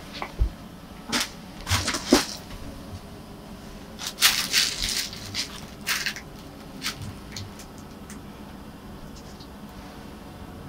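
Fabric cat tunnel rustling and crackling in short, irregular bursts as cats paw at it and move against it. The bursts are loudest around four to five seconds in and die away in the last few seconds.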